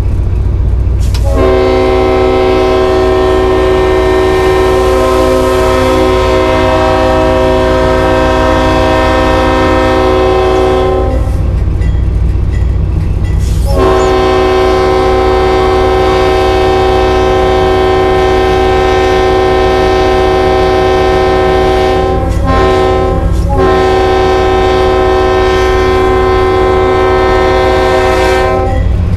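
Leslie RS-5T five-chime air horn sounding a chord of several steady tones in two long blasts, the first about ten seconds long and the second about fifteen seconds, faltering briefly about two-thirds of the way through. A steady low rumble runs underneath.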